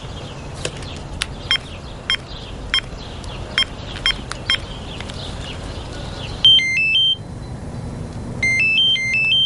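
Mobile phone keypad beeps as a number is dialled: about six short beeps. Then a mobile phone ringtone, a short electronic melody of stepped tones, plays twice as the call comes through, about six and a half seconds in and again near the end.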